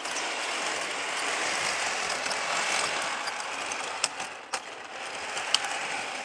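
HO-scale model train running on the layout's track: a steady mechanical whirr of the locomotive motors and the wheels on the rails, with a few sharp clicks near the end as the wheels cross rail joints and turnouts.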